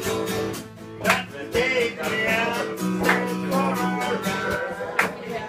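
Acoustic guitar music: chords strummed about every two seconds, with the notes ringing on between strums.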